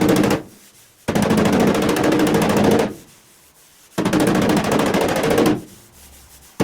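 A power tool run in short trigger bursts, three times: a fast, rattling buzz that starts abruptly and winds down each time it is released, typical of bodywork sanding or stripping on the car's panels.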